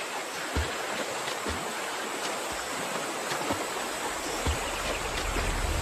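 Shallow river water rushing and splashing around rocks as Nile crocodiles move through it, with a few soft thuds. A low rumble comes up near the end.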